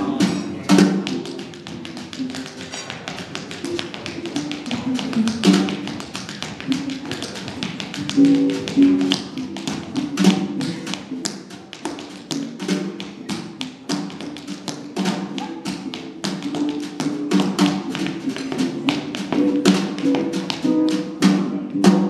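Tap shoes clicking in quick, dense rhythms on a wooden dance floor, over resonator guitar accompaniment, with a sharp final accent just before the end.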